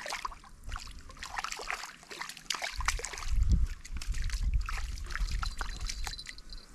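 Water sloshing and trickling, with scattered crackles throughout and a low rumble from about three seconds in to five and a half.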